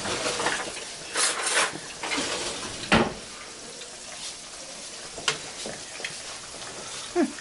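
Chicken thighs frying in oil in a cast-iron skillet, a steady sizzle, with louder bursts of sizzling and scraping as pieces are moved in the first couple of seconds. There is a sharp knock of metal about three seconds in and a lighter click a couple of seconds later.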